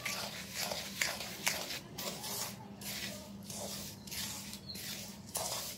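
Flat spatula stirring a dry, crumbly mix of roasted besan and sugar in a metal karahi: a quick run of gritty scrapes and rustles, about two or three strokes a second, over a faint steady hum.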